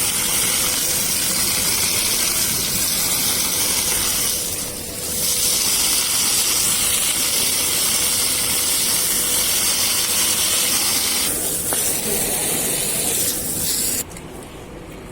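A water spray jet hissing as it washes a window air conditioner. It runs steadily, dips briefly about a third of the way in, and cuts off suddenly near the end.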